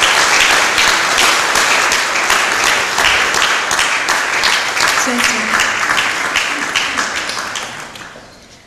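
Audience applauding, a dense steady clapping that thins out and dies away in the last second or so.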